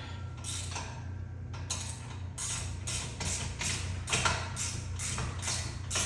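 A 5/8" socket wrench ratcheting as a bolt is tightened down. There are short rasping strokes, a little over two a second, starting a couple of seconds in.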